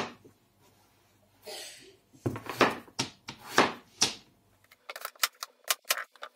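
Kitchen knife cutting through peeled bottle gourd and striking a plastic chopping board. A knock at the start and a few slower cuts are followed, about three quarters of the way in, by a quick run of short, sharp taps on the board.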